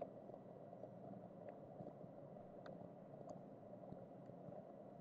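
Near silence: a faint steady low hum of room tone, with a few faint ticks.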